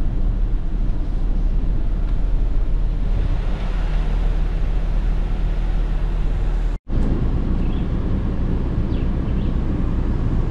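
Vehicle engine running while under way, a steady low rumble; the sound cuts out for an instant about two-thirds of the way through.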